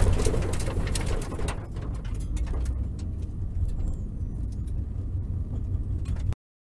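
Low in-cabin rumble of a track car rolling slowly in neutral just after a spin, with scattered sharp clicks and knocks over it. The sound cuts off suddenly near the end.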